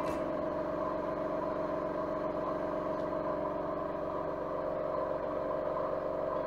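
Small air compressor running with a steady, even hum.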